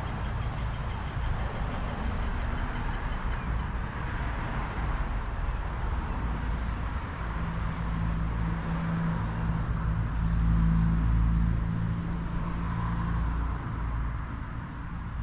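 Steady low rumble of road traffic, with a few short, high bird chirps over it.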